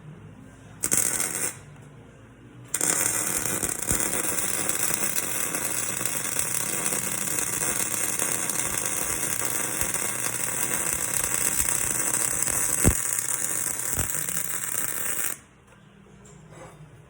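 Electric arc welding: the arc strikes briefly about a second in, then runs steadily from about three seconds in and cuts off sharply near the end.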